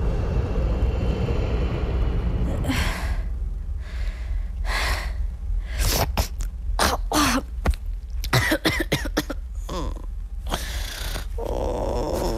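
A person sneezing and coughing in a string of short, sharp bursts, a second or two apart, over a steady low rumble.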